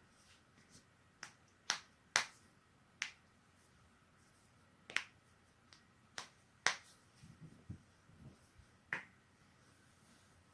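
A person's joints cracking: about eight sharp, short pops at irregular intervals, from a fraction of a second to two seconds apart.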